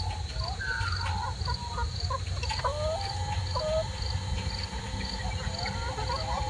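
Hens clucking and chirping in short, scattered calls, over a high insect trill that pulses about twice a second.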